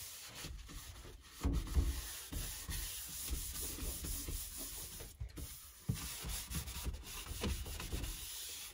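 Cloth rag rubbing back and forth over a freshly sanded countertop in uneven strokes, wiping off sanding residue with acetone cleaner before painting.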